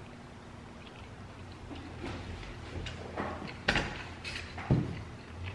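A person eating: quiet chewing, with a handful of short clicks in the second half.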